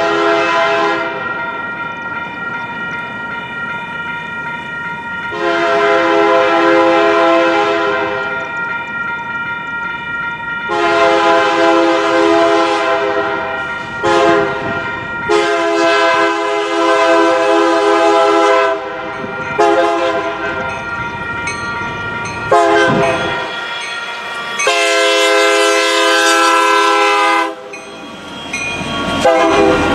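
A Union Pacific train's horn sounding a chord in a series of long and short blasts, roughly long, long, short, long and repeated, the signal a train gives approaching road crossings, over the steady rumble of the train.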